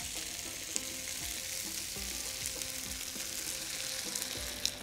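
Chicken cubes, mushrooms and flour frying in butter and oil in a stainless steel pan, sizzling steadily as cooking cream is poured in. A short light tick comes near the end.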